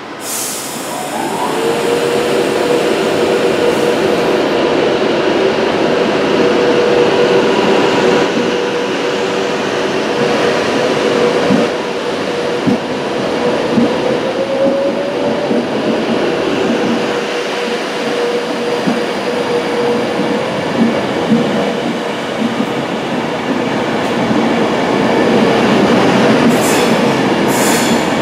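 Class 390 Pendolino electric train pulling out of the platform. A steady electric whine rises at the start and then holds over the rumble of wheels on rail, with a few sharp clicks from the wheels.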